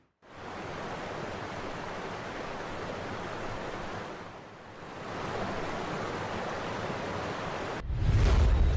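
Steady rush of a waterfall pouring and splashing onto rocks, dipping briefly about halfway through. Near the end a bass-heavy music track starts.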